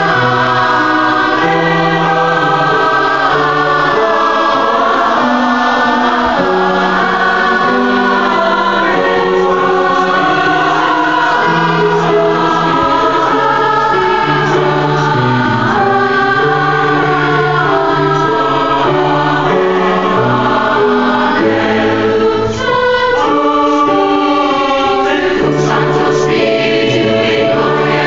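High school mixed choir, boys' and girls' voices together, singing in parts with held notes.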